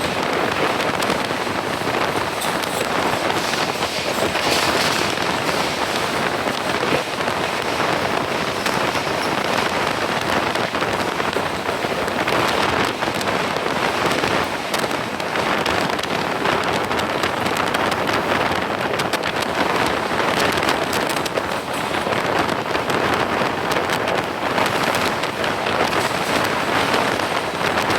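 Moving train with steady rushing running noise, full of fine crackling, mixed with rain and wind noise.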